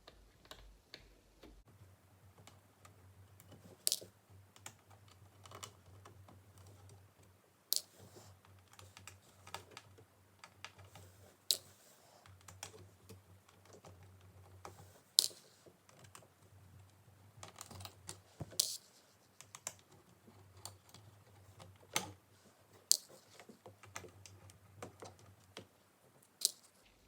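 Small clicks and taps of a screwdriver working the screen screws of a plastic laptop, with a sharper click every few seconds.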